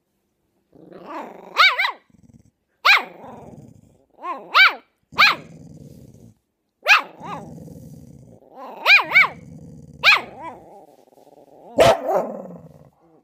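A fox terrier puppy and a chow chow mix dog barking and growling back and forth. About a dozen short, high-pitched barks come in twos and threes, with low growling between them.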